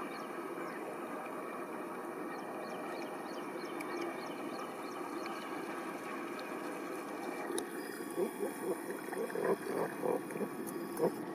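A topwater frog lure worked across shallow, weedy water: a run of small, irregular splashes and plops from about eight seconds in, over a steady low hum.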